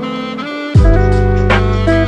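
Background music, an instrumental tune; about three quarters of a second in, a deep bass line and a drum beat come in and it gets louder.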